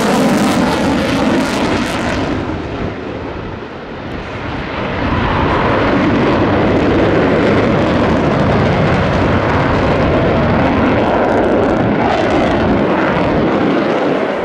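Loud jet noise from an F-22 Raptor's twin engines as it flies overhead. The sound dulls and softens from about two seconds in and swells back up about five seconds in, then holds steady.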